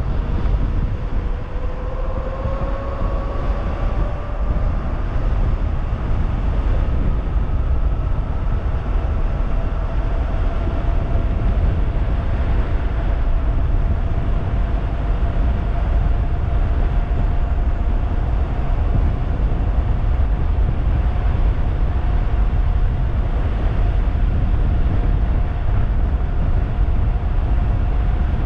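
Wind rushing over the microphone of a fast-moving e-bike, with the electric motor's faint whine rising in pitch as the bike accelerates and then holding steady at cruising speed.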